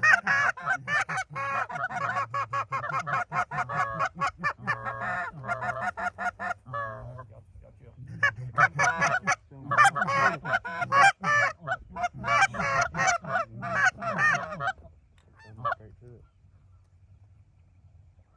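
Goose honking and clucking in loud, rapid runs of notes, with a short break about seven seconds in; it stops about fifteen seconds in.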